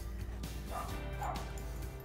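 Small white terrier giving two short, playful barks about a second in, as it acts silly on the leash, over steady background music.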